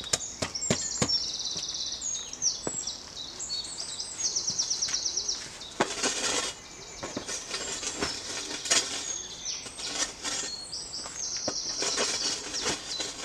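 A spade digging into rocky, stony soil: irregular sharp strikes and scrapes of the metal blade against stones and earth. Songbirds sing behind it in quick, repeated trilled phrases.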